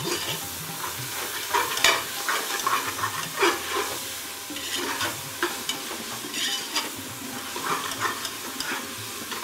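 Beans, green chillies and tomato sizzling in hot oil in an aluminium pressure cooker as a spoon stirs and scrapes through them, with scattered scraping strokes over a steady sizzle.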